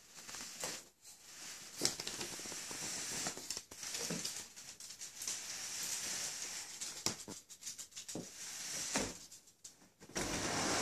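Soft rustling and handling noise with scattered light taps and clicks.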